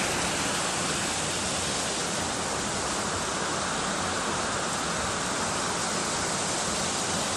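Steady rush of water spilling over a sandstone ledge into a rock pool below, a small waterfall.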